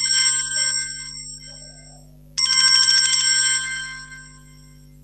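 Telephone ringing with an incoming call: a trilling electronic ring that dies away about two seconds in, then rings again briefly and fades, over a steady low hum.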